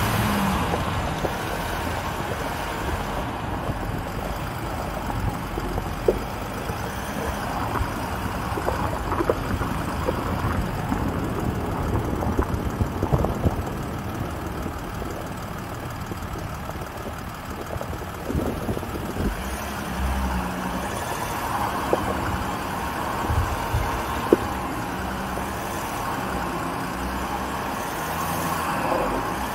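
Off-road 4x4 engine running at low revs while crawling over rough gravel, with scattered knocks and clicks from the vehicle and stones.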